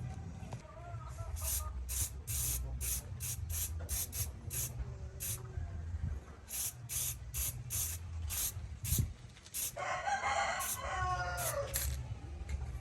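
Rooster crowing about ten seconds in. Before it come runs of short, high, evenly spaced scraping strokes, about three a second, over a steady low hum.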